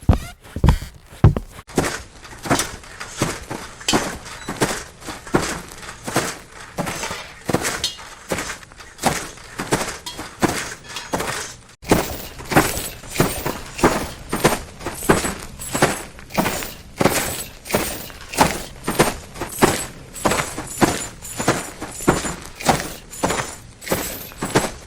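Foley footsteps walking at an even pace, about two steps a second, each step a crunchy scuff. From about twelve seconds in a new take starts in which every step comes with a bright metallic jingle of armor and chainmail.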